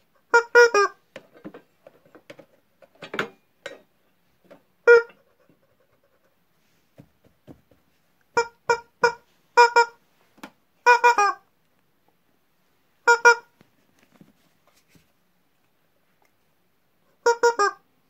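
Rubber squeaky toys squeezed by hand, giving short squeaks of one pitch in quick groups of two to four, spread through with pauses between.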